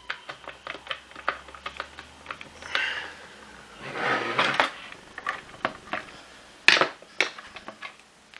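Quick, uneven small clicks and ticks of a hand screwdriver turning out a screw in a plastic vacuum floor head, with the plastic parts being handled and one sharper click about two-thirds of the way through.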